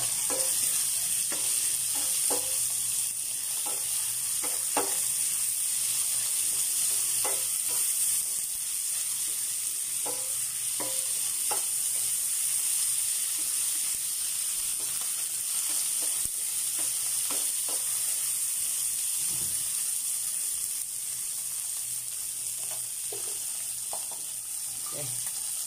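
Pork, onion and tomato sizzling in oil in a nonstick wok: a steady hiss, with the spatula scraping and tapping the pan now and then as it stirs.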